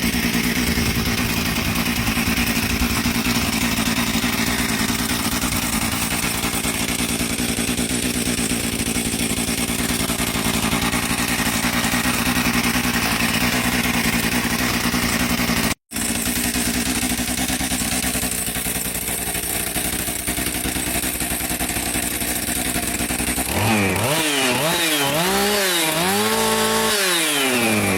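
Johnson Red CS 2255 55cc two-stroke chainsaw running on a fuel mix of about 75% nitromethane, held at high revs at a steady pitch. It drops out for an instant about halfway through, then is revved up and down several times near the end.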